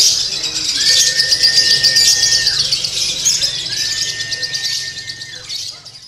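Caged lovebird chattering in a rapid, unbroken high-pitched stream, the 'konslet' style of song. Behind it a long level whistle that drops at its end is heard three times, and the sound fades out near the end.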